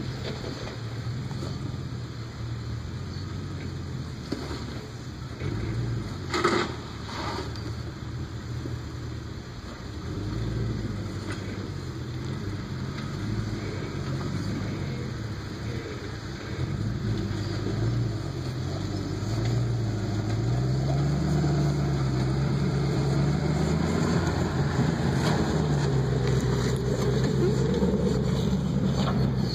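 Range Rover engine working at low speed as the truck crawls over rock, its pitch rising and falling with the throttle and growing louder in the second half as the vehicle gets closer. A sharp knock about six seconds in.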